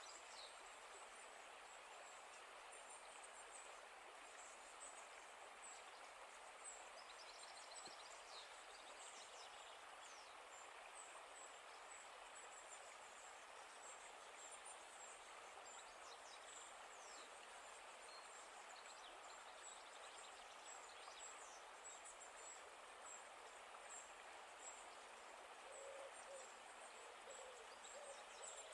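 Faint outdoor ambience: a steady hiss with small birds chirping and giving short high calls throughout. Near the end comes a run of low, repeated calls from a bird.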